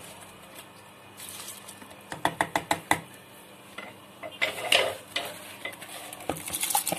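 Metal utensil clinking and scraping against a cooking pot. A quick run of about seven sharp knocks comes about two seconds in, a short scrape near the middle, and more clinks with a hiss near the end.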